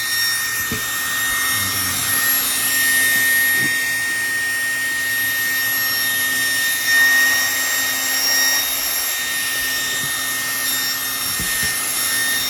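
Small YCS electric cooling and fume-extraction fan running at high speed: a steady rush of air with a constant high-pitched motor whine.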